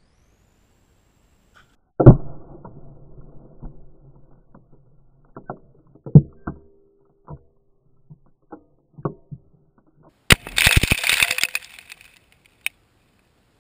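Detonation of a charge of H2 binary explosive in a metal file cabinet: a heavy boom about two seconds in with a long low rumble, then several more sharp thumps. Near the end comes a dense crackle of grit and debris spraying over the camera.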